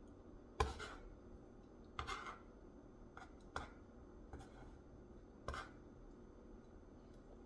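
A handful of light clicks and taps, about six, the sharpest under a second in, from tableware and takeout containers being moved and handled.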